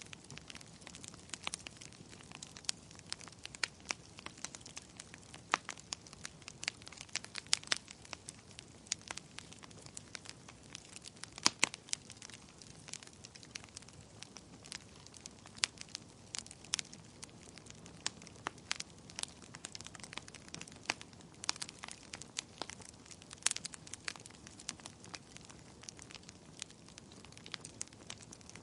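Wood fire in a fireplace crackling: irregular sharp pops and snaps, often several a second, over a soft low hiss.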